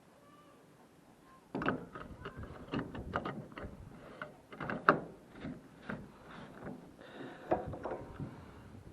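A run of irregular clicks, knocks and rattles of something being handled, the sharpest knock about five seconds in. There is no engine running.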